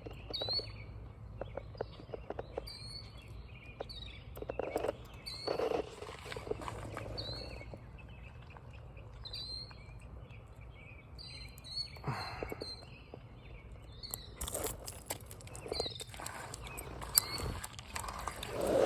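A bird chirping over and over in short, high chirps, about one or two a second. Intermittent rustling and clicking from close handling comes and goes over it.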